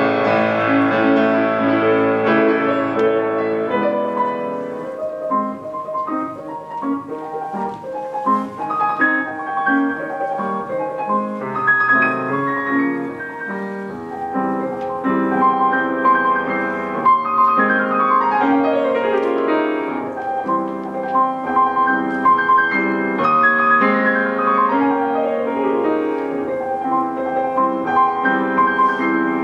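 Solo piano playing a classical-style piece, with two fast descending runs in the second half.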